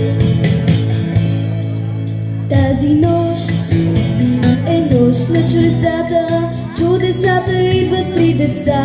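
Instrumental backing music of a Christmas pop song. About two and a half seconds in, a girl's singing voice comes in over it through a microphone and carries on.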